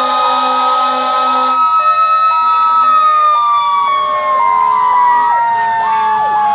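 Several fire engine sirens sounding together. One long siren tone rises slowly in pitch, then falls steadily through the second half. Over it, other sirens switch back and forth between two pitches, with quick up-and-down wails from about four seconds in.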